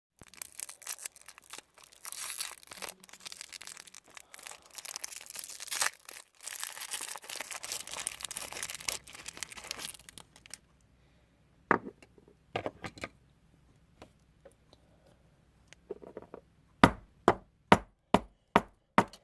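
Plastic candy wrapper crinkling and tearing for about ten seconds as a lollipop is unwrapped, then sharp knocks on the hard candy: a few single strikes, and near the end six quick hard strikes as it is cracked open to get at the gum inside.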